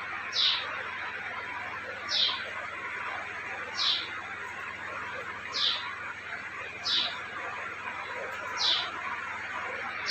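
A bird chirping: one short, falling chirp repeated at a steady pace, about every second and a half, six or seven times.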